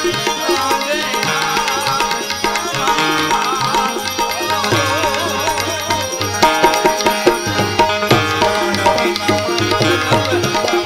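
Instrumental passage of Gujarati santvani bhajan music: tabla playing a busy rhythm over held drone notes, with an ornamented, wavering melody above.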